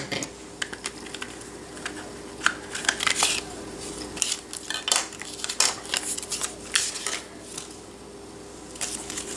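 Hard plastic pieces of a Seidio Surface phone case and its holster clicking and tapping as they are handled and set down on a countertop, in a string of short, irregular clicks.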